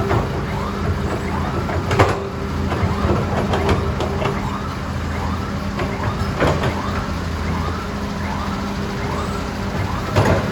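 A heavy vehicle's diesel engine running steadily, with a warbling siren-like tone that rises and falls about twice a second over it. A few sharp knocks stand out, one about two seconds in, one past the middle and one near the end.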